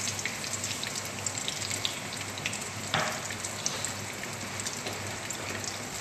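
Eggplant omelette (tortang talong) frying in oil in a pan: a steady sizzle scattered with small crackling pops, one louder crackle about three seconds in. A faint low hum runs underneath.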